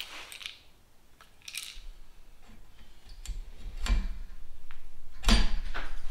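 Scattered clicks, knocks and clinks of hand tools and metal wing-frame parts being handled, growing busier in the second half, with a louder knock about five seconds in.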